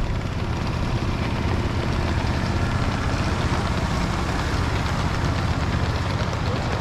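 A 7½-inch gauge ride-on Union Pacific diesel-model locomotive running steadily as it hauls a long string of riding cars past, its engine giving a low steady hum over the rattle and clicking of many small wheels on the track.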